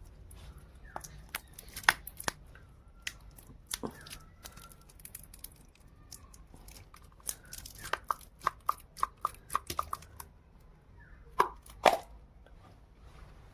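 Dry peanut shells being cracked and crushed: scattered sharp crunches, a quick run of about four cracks a second in the middle, and two louder cracks near the end.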